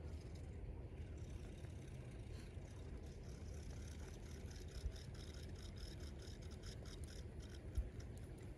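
Spinning reel on a feeder rod being wound in, a rapid ticking whir as the bait rocket (spod) is retrieved. Two short knocks, about five seconds in and near the end, over a steady low rumble.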